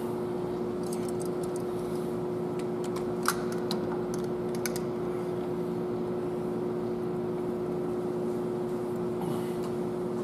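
Steady mechanical hum of workshop equipment with a constant tone, and a scatter of light metallic clicks and taps from hand tools on the engine's gear train in the first half, the sharpest about three seconds in.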